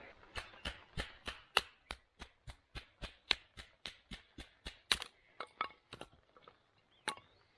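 A wooden baton knocking on the spine of a Mora knife to split thin kindling sticks against a rock. Sharp wooden knocks come about three a second for around five seconds, then a few scattered ones and a last knock near the end.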